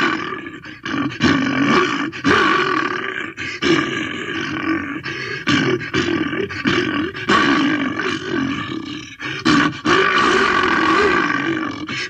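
Postosuchus creature sound effects: a string of about a dozen pitched calls following one another, each lasting around a second, with brief breaks between them.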